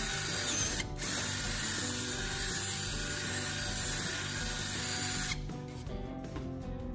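Power drill boring a hole in a PVC pipe, with a brief break about a second in, then stopping about five seconds in, leaving background music.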